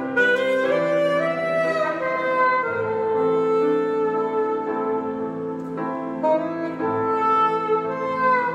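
Saxophone playing a slow melody with long held notes, accompanied by chords on a grand piano.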